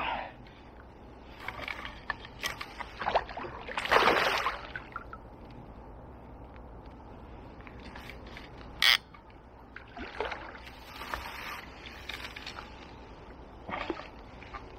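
A hooked barbel thrashing and splashing at the surface of a river while being played in, in irregular bursts of splashing; the loudest is about four seconds in, with a short sharp one near nine seconds and more towards the end.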